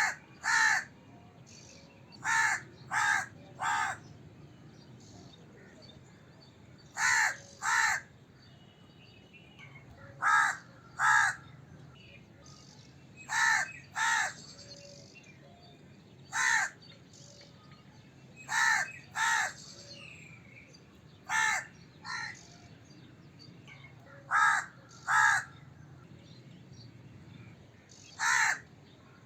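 A crow cawing repeatedly: short, harsh caws, mostly in pairs or threes, with a pause of a few seconds between groups.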